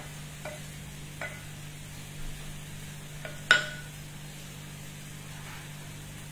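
Wooden spoon stirring rice in an aluminium pot, knocking against the pot a few times with short metallic rings; the loudest, sharpest clink comes about three and a half seconds in. A low steady hum runs underneath.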